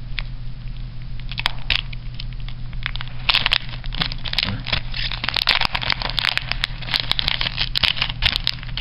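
Shiny plastic wrapper of a trading-card booster pack crinkling and crackling as it is pulled open by hand. A few separate crackles at first, then dense crinkling from about three seconds in.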